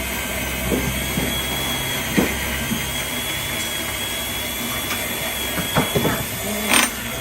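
Steady workshop machinery hum with a faint high whine, and several short clicks and knocks of tools being handled, the loudest near the end.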